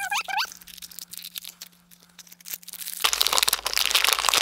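Shiny foil blind-pack wrapper being torn open and crinkled by hand, a dense crackle starting about three seconds in after a few light handling clicks.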